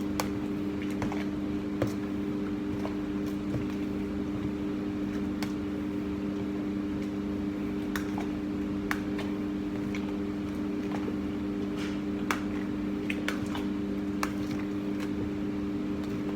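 Steady electrical hum with scattered light clicks and taps as sliced chicken is mixed with its marinade and red food colouring.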